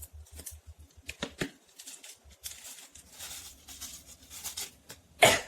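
Crispy fried shallots being sprinkled in, with light crackling, rustling and pattering and a quick run of crisp clicks at first. About five seconds in comes one loud, sudden burst from the person, a reaction to the hot chili.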